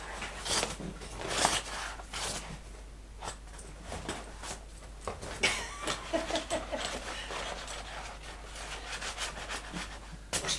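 A dog playing with a bone on a settee: irregular scuffling and rustling, the loudest scuffle about a second and a half in.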